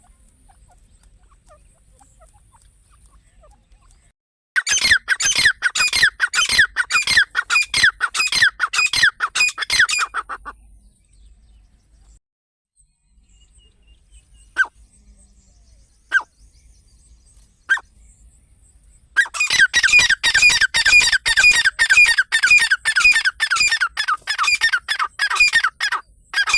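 Partridge (teetar, a francolin) calling: a fast run of harsh repeated notes, about three or four a second, for some six seconds, then three single notes about a second and a half apart, then another fast run near the end.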